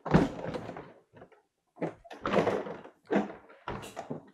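Folding kayak's orange plastic hull being unfolded and laid out on a table: the stiff plastic sheet flexes and clatters, knocking against the table in a series of thumps, the loudest just as it is first set down.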